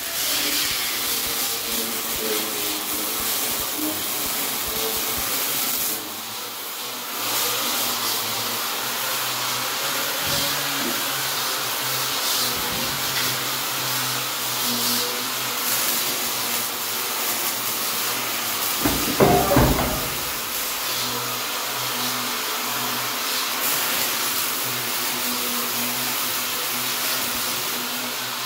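Welding-shop noise: a steady hiss from welding steel, which drops briefly about six seconds in, and a short, louder clatter about two-thirds of the way through.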